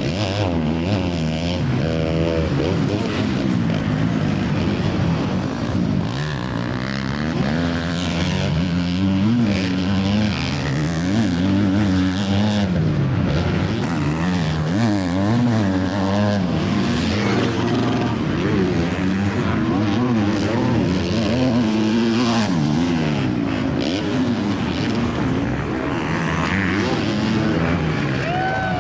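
Several motocross race bikes' engines revving hard, the pitch rising and falling again and again as the riders shift and open and close the throttle, with engines overlapping.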